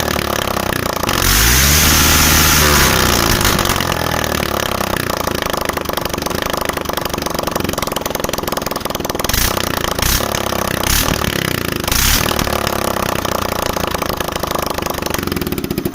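Suzuki Slingshot 125cc single-cylinder four-stroke engine running with the silencer removed, giving a loud raw open-exhaust note. It is revved once, rising and falling about a second in, then runs steadily, with a few sharp cracks a little past the middle.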